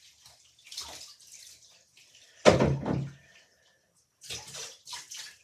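Bathwater splashing and sloshing in a bathtub as a cat is washed: a few short splashes, the loudest about halfway through, and more near the end.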